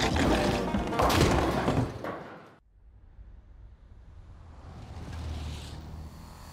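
Cartoon bowling-alley crash: a run of loud clattering impacts over music, cut off sharply about two and a half seconds in. A faint low rumble follows.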